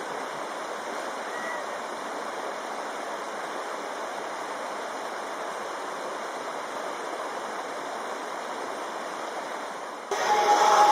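Steady rush of a shallow, rocky mountain stream flowing over stones. About ten seconds in it cuts to louder music.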